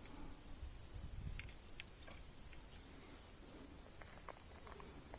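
An insect chirping in a steady high-pitched pulse, about five pulses a second, with a few faint clicks.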